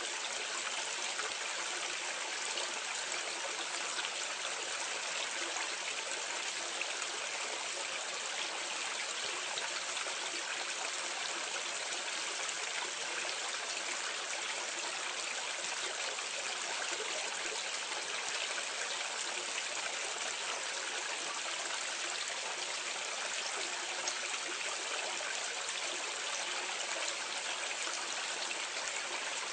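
Drain water splashing down in a steady, unbroken rush like a small waterfall, heard from medium distance.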